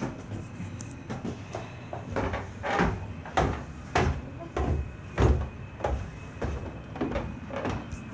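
Footsteps going down a flight of stairs: about a dozen heavy steps at an even pace, roughly one every half second.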